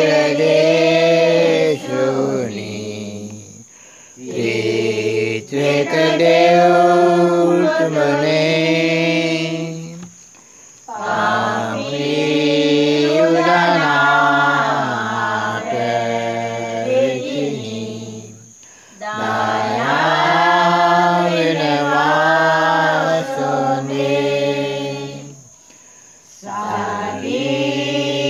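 Sinhala Pasan, a Lenten Passion hymn, sung by a prayer group in slow, drawn-out chanted phrases, with no instruments. Each long phrase is held several seconds and the melody bends between notes, with short breaks for breath between phrases, four times.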